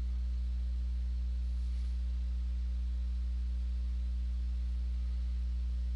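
Steady low electrical hum with faint overtones, unchanging throughout.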